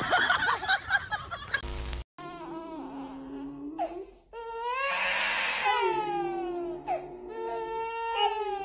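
An infant crying while a dog howls along with long, wavering cries that slide down in pitch. Before them, in the first two seconds, there is a jumble of sound that ends in a short burst of hiss.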